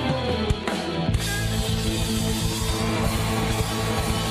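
Live band playing loud rock music on a drum kit. About a second in, the full band comes in, with fast drumming and cymbals.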